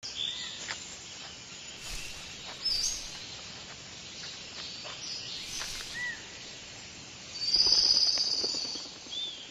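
Birds chirping in short calls and brief rising-and-falling notes over a steady outdoor hiss, with a louder high trill lasting about a second near the end.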